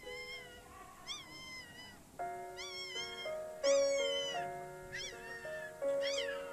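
A sick puppy crying over and over in high-pitched, rising-then-falling whimpers, about seven in all. Background music with held chords comes in about two seconds in.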